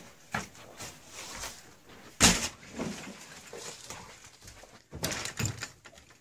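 Irregular knocks and thumps of a handheld camera being carried and jostled, with one loud bang about two seconds in and a cluster of knocks near the end.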